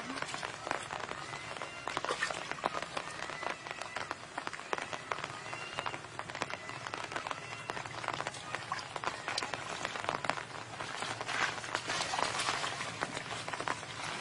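Hands splashing and squelching in shallow muddy water as fish are groped for by hand, an irregular patter of small splashes.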